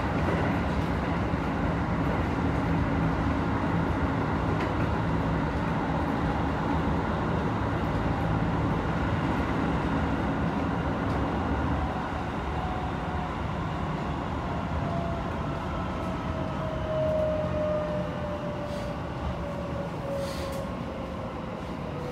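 Cabin running noise of a Hokuso Railway 7500 series train on the rails. From about halfway, the Toyo IGBT-VVVF inverter and traction motors give a thin whine that falls steadily in pitch as the train slows under braking toward the station.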